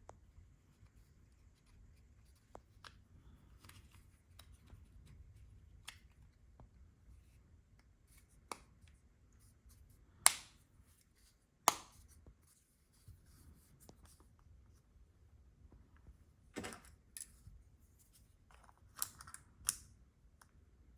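Plastic clicks and snaps of a Nissan Kicks key fob's case being pressed back together by hand. There are scattered light ticks, two sharp snaps about ten and twelve seconds in, and a few more clicks near the end.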